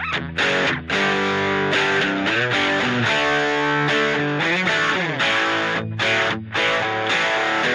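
Background rock music led by distorted electric guitar.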